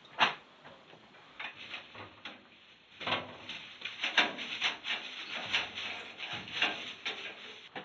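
Handling noise of someone coming in through a wooden door with a bag: a few scattered clicks and knocks, then a dense run of quick clicks and rustling from about three seconds in.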